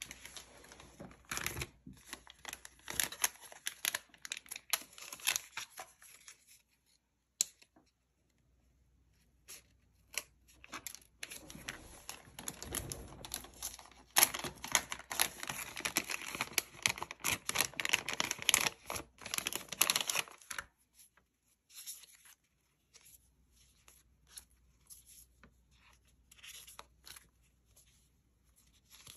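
Plastic-wrapped sticker packs and paper sticker sheets rustling and crinkling as they are handled and slid into a clear plastic zipper pouch. There are two long stretches of busy rustling with a pause of a couple of seconds between them, and only occasional light rustles after about twenty seconds.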